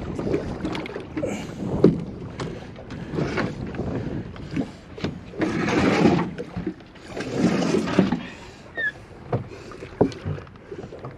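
Water splashing in irregular bursts against the side of a small boat as a large hooked fish thrashes at the surface. The two biggest surges come about halfway through, with a few sharp knocks scattered among them.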